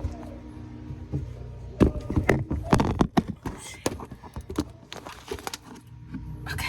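Footsteps walking across a kitchen floor, an irregular run of knocks and clacks for a few seconds in the middle, over a steady low hum.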